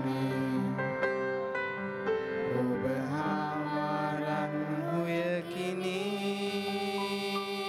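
A young boy's voice singing a melody into a microphone over piano accompaniment, settling into a long held note in the last couple of seconds.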